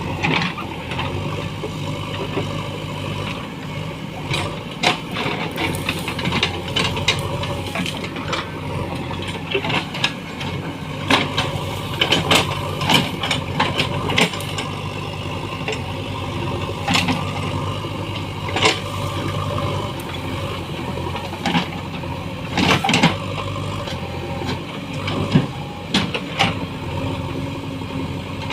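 A JCB backhoe loader's diesel engine running steadily under work, with repeated sharp cracks and clatters.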